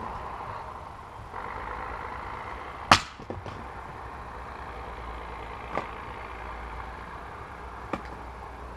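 A 2.5 kg splitting axe striking a log once, a sharp crack about three seconds in, with a few small clatters just after as the pieces fall. Two fainter wooden knocks follow later.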